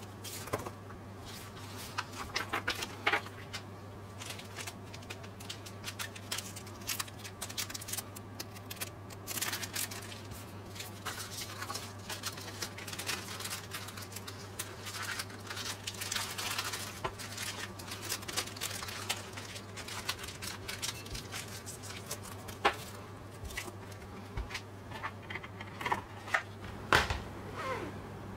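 Paper and plastic Blu-ray packaging being handled by gloved hands: a leaflet, sticker sheet and disc case rustle, slide and tap with many small clicks, over a steady low hum.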